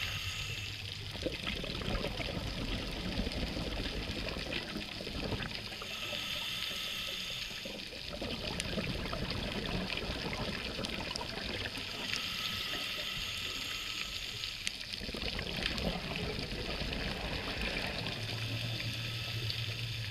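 A scuba diver breathing through a regulator, heard underwater: a hissing inhale about every six seconds, each followed by a few seconds of bubbling exhaust.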